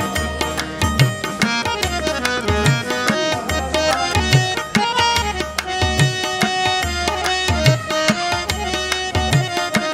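Background music with a steady drum rhythm, low strokes that bend in pitch, under a melodic line.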